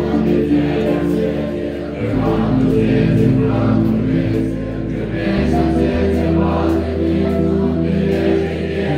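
Tibetan Buddhist monks chanting prayers in unison, a steady many-voiced recitation over a deep sustained bottom note that shifts pitch about two seconds in and again past the middle.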